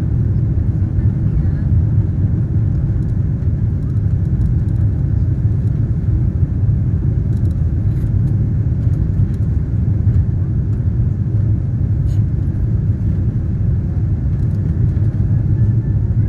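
Cabin noise inside a Korean Air jet airliner after takeoff clearance: a steady low rumble of the engines and airflow, with no change in level.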